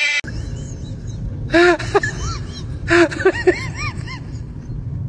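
A cat's loud yowl, cut off short at the very start, then two cats squabbling: bursts of hissing, each followed by short, arching cries.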